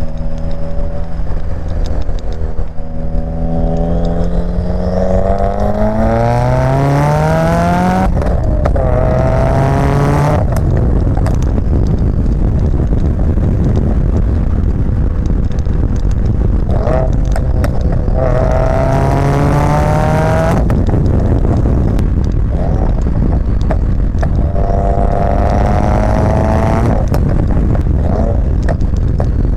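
Subaru WRX turbocharged 2.0-litre flat-four breathing through a catless J-pipe and Greddy RS-Race catback exhaust, under hard acceleration. Engine pitch climbs steadily, breaks off and settles, then climbs again, three pulls in all, over a steady low exhaust rumble.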